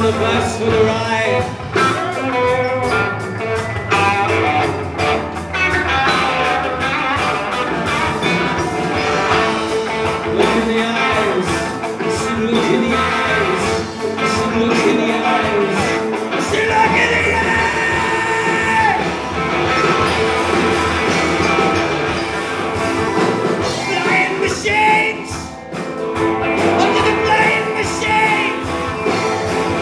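Live rock band playing: electric guitar, bass guitar, acoustic guitar and drum kit together, with a voice singing at times.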